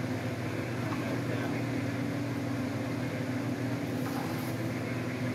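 Steady low machine hum of a running appliance or fan, a low drone with a second, higher tone above it. Faint rustling of cable handling comes in about four seconds in.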